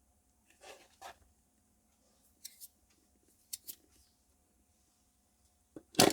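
Light clicks and small knocks of a plastic quartz clock movement being handled as a battery is fitted, coming in irregular pairs, then a louder cluster of clicks and rattles near the end.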